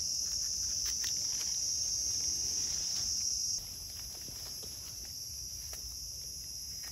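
Steady, high-pitched chorus of forest insects that drops in loudness about halfway through as part of it stops. Faint light scrapes and rustles of a knife trimming a mushroom stem and hands in dry leaf litter.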